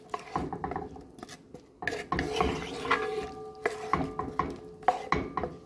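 A wooden spoon stirring a pot of wet stew, knocking and scraping against the pot in irregular clicks.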